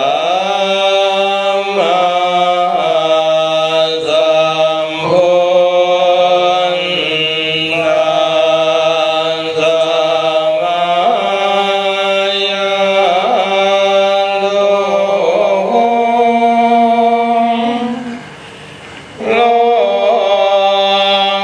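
Buddhist monk chanting Pali in a slow, melodic style, holding long drawn-out notes that glide between pitches. The voice stops for about a second near the end, then the chant resumes.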